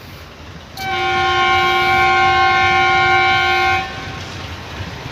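Indian Railways locomotive horn sounding one steady blast of about three seconds, several notes at once, starting about a second in and stopping sharply. It is the warning blast given as the train gets ready to pull out.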